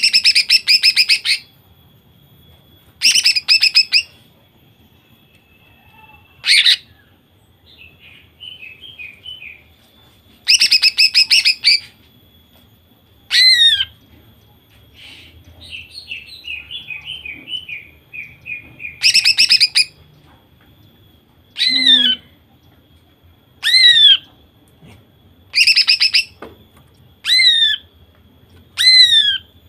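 Female greater green leafbird (cucak ijo) calling: five loud, rapid, buzzy trill bursts of about a second each, with six sharp falling whistled notes and softer twittering between them. This is the rapid-fire 'nembak' call that keepers play to provoke male cucak ijo into singing.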